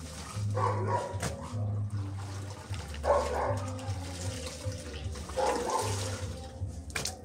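Water sloshing and splashing as wet clothes are lifted and wrung out over a washing-machine tub, in three bursts: about a second in, about three seconds in and about five and a half seconds in.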